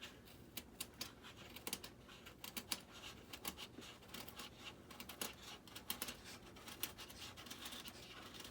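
Hobby knife blade cutting through the foam of an RC model jet's airframe: an irregular run of small scratchy crackles and clicks.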